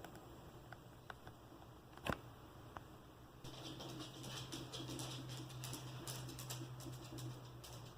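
Dell Optiplex 390 desktop powering on: a sharp click about two seconds in, then from about three and a half seconds its fan starts with a low steady hum and faint crackly ticking, as the freshly replaced motherboard boots.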